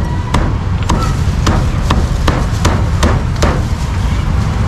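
Meat cleaver chopping a grilled duck through the bone on a thick wooden chopping block: a series of sharp chops, about two to three a second, over a steady low rumble.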